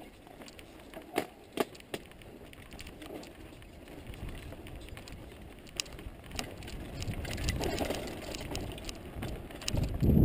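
Mountain bike rolling over a rough dirt and stone trail: two sharp knocks about a second in, then a rough low rumble of tyres on the ground that grows louder in the second half and is loudest near the end.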